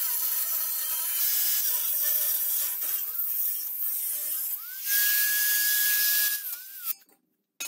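Angle grinder with a cut-off disc slicing through the trike's steel frame tubing, its whine sagging and wavering in pitch as the disc bites. Near the end it runs free at a steady high whine for about two seconds, then stops abruptly.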